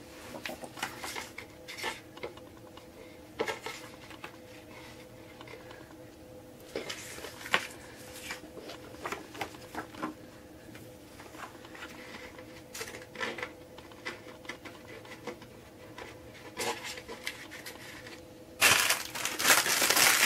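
Hand-handling noises: scattered light clicks and taps as printed photos and small clips are handled and fastened onto a twine line. Near the end comes a louder, denser crinkling of packaging.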